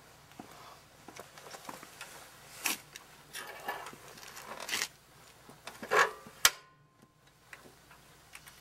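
Irregular rustling, scraping and knocking of clothing and handling close to the microphone as a rider gets onto a motorcycle, with a sharp click about six and a half seconds in.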